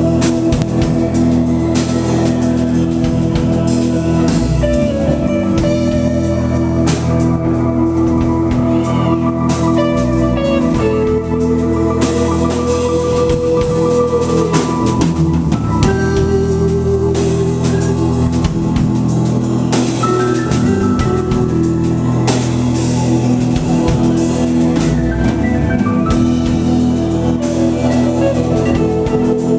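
Live rock band playing a song: electric guitars, bass, drum kit and keyboard, with held keyboard chords over steady drumming.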